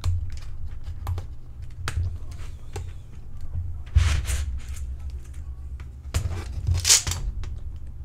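Plastic clicks and knocks from handling a disassembled membrane keyboard: keys being pressed back into the frame and the plastic case bumped on the desk. The loudest knocks come about four seconds in and near seven seconds.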